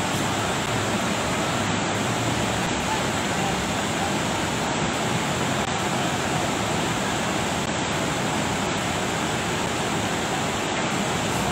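Steady rushing of a muddy, flood-swollen mountain river.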